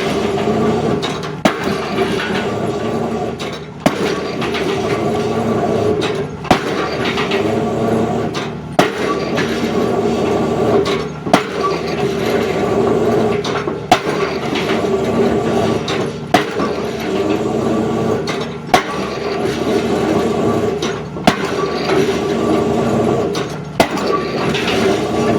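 Excavator drop hammer striking a square concrete pile: sharp impacts at a steady pace, about one every two and a half seconds, ten in all, over the excavator's engine and hydraulics running steadily.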